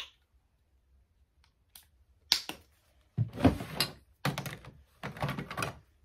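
Small skincare items being handled by hand: a few clicks and ticks, then three rustling, scraping bursts about a second apart near the end.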